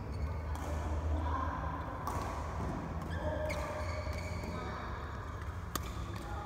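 Badminton rackets striking the shuttlecock during a rally: four sharp hits a second or two apart, the last the crispest, over a steady low hum.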